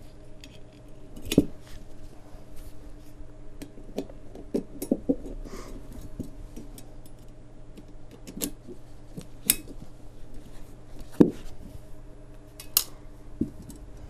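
Stainless steel rods and pipe joints of a folding fire-stand frame clinking and tapping together as it is assembled by hand: a dozen or so scattered, sharp metallic clicks.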